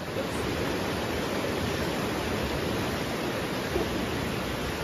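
Sea waves washing onto a stony beach: a steady rush of surf.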